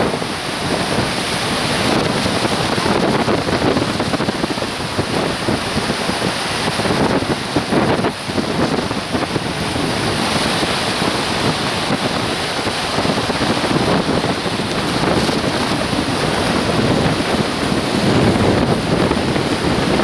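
Sea waves breaking and washing over shoreline rocks, a continuous rush of surf that swells and eases, with wind buffeting the microphone.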